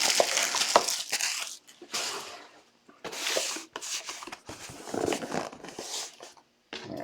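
Foil trading-card pack wrappers and packaging being torn and crinkled by hand. It starts as one continuous stretch, then breaks into several short rustling bursts with brief pauses between them.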